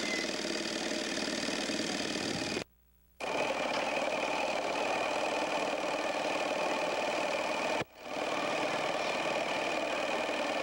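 A small engine running steadily with a buzzing, even note. The sound cuts out for about half a second around three seconds in, and dips briefly near eight seconds.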